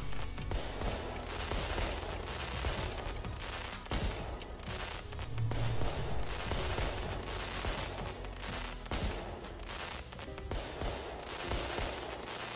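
A large fireworks display: many shells bursting and crackling at once in a dense, continuous barrage of bangs with no pause.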